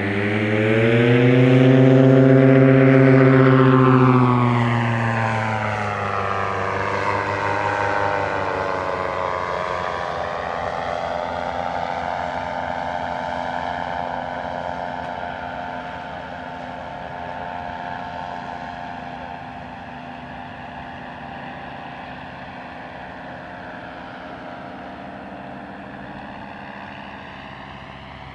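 A paramotor's engine and propeller flying past, loudest in the first few seconds. Its pitch then drops as it goes by, and the drone slowly fades as it moves away.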